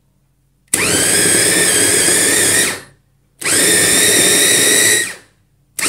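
Electric mini food chopper run in short pulses, chopping red chillies, onion and garlic: its motor whirs up to speed and runs down again twice, about two seconds each time, and starts a third burst near the end.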